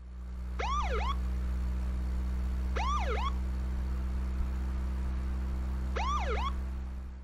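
Police car siren giving three short whoops, each a quick rise and fall in pitch, spaced a few seconds apart over a steady low hum.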